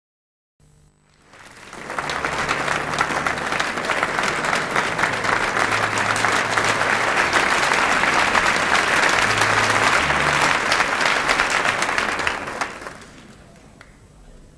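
Audience applauding in a hall, swelling over the first couple of seconds, holding steady, then dying away near the end.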